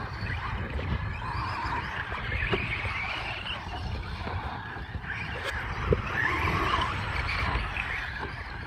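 Radio-controlled Traxxas Slash short-course trucks racing on a dirt track, their motors whining and tyres scrabbling in loose dirt; the whine swells and fades twice as the trucks pass. Wind rumbles on the microphone throughout.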